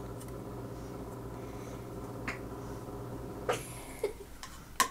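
A few light clicks and taps of a feeding spoon against a bowl, over a steady low hum that stops about three and a half seconds in.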